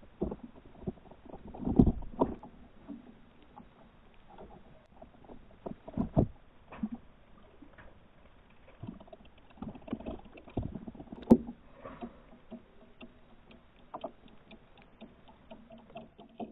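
Muffled splashing and knocking of a shiba inu's paws wading through shallow bathwater in a tub, heard from under the water. Irregular splashes and knocks come and go, the loudest about two seconds in, around six seconds in, and a sharp knock about eleven seconds in.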